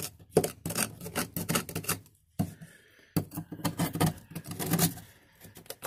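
Rapid, irregular clicking and clattering, like hard objects being handled, with a short pause about two seconds in.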